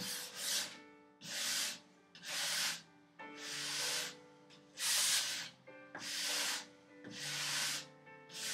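Hand sanding block with worn 150-grit sandpaper rubbed back and forth over a wooden vise chop, about one stroke a second, each stroke a short scratchy rasp.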